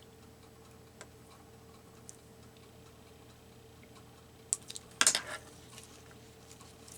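Paper being handled at a craft table: a few faint ticks, then a short burst of paper rustling and clicking about five seconds in, over a faint steady hum.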